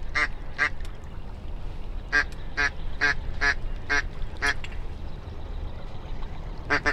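Ducks quacking: short nasal quacks, two at first, then a run of six at about two a second, then a quick pair near the end.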